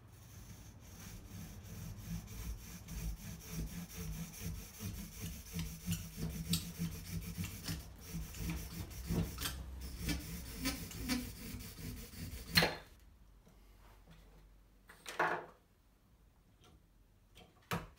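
A 3D-printed carbon-fibre PLA hand saw cutting through a half-inch sugar pine stick in quick back-and-forth strokes, growing louder, and ending about twelve seconds in with a sharp crack as the cut goes through. A short clatter follows a few seconds later.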